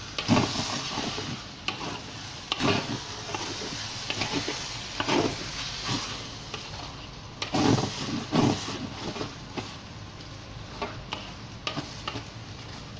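Fried instant noodles with prawns and vegetables sizzling in a large wok while a spatula stirs and tosses them, with irregular louder scrapes of the spatula against the pan.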